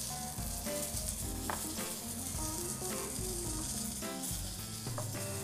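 Soft background music, a melody of changing notes over a bass line, laid over a steady hiss.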